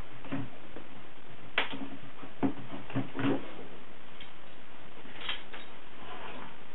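Handling noise from a rubber spearfishing weight belt with a metal buckle and a cord tensioner with a small metal clip: a few scattered clicks and light knocks as they are lifted and moved, the sharpest about one and a half seconds in and a quick cluster around three seconds.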